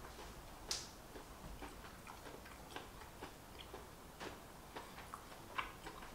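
A person chewing food, faint, with small irregular clicks and ticks from the mouth, one sharper click just under a second in.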